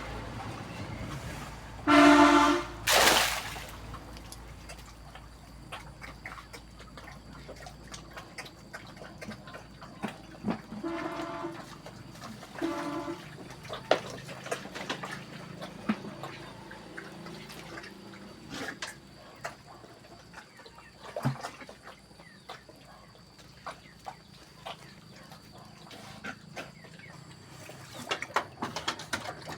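An animal's short pitched call about two seconds in, followed at once by a loud harsh cry. Two shorter calls at the same pitch come later, among scattered clicks and knocks.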